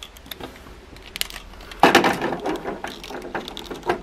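Plastic parts of a Transformers Masterpiece MP-27 Ironhide figure clicking and scraping as its hinges and joints are worked by hand. A few light clicks come first, then a louder, denser run of clicks and rattling starts about two seconds in.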